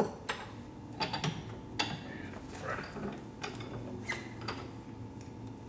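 Irregular metallic clicks, knocks and short scrapes as the parts of a motorcycle's sprung seat post are handled and slid apart.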